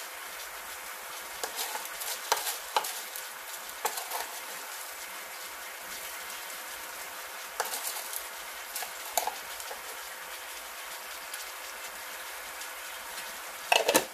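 Steady sizzling hiss from a pan of lamb legs cooking in oil and water. A spoon taps and clinks against the pan several times as whole spices are tipped in, with a louder clatter near the end.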